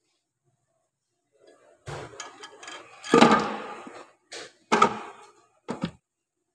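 Metal knocks and clunks on the aluminium case of a Toyota RAV4 CVT transmission as a splined sleeve is fitted into a case bore. After two silent seconds come about half a dozen, the loudest about three seconds in with a short ring.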